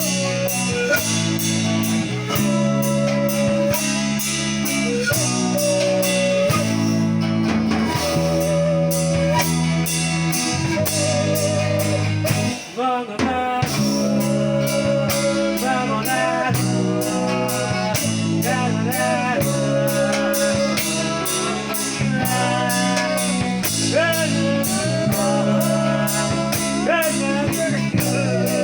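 Song played on bamboo pan pipes with a steady beat, held low notes and a singing voice carrying a wavering melody. The music dips briefly about halfway through.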